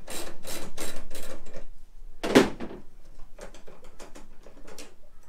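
Socket ratchet clicking rapidly, about five clicks a second, as a 17 mm tailgate hinge bolt is undone. Then one loud clunk a little over two seconds in, followed by lighter scattered metal clicks and scrapes.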